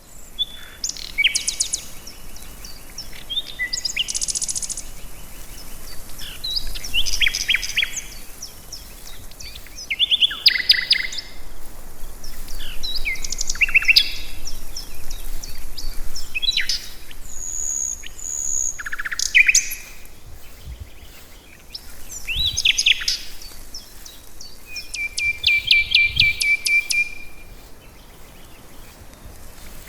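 Songbirds singing: a run of short chirped phrases and rapid trills with brief gaps between them, including a longer, even trill near the end.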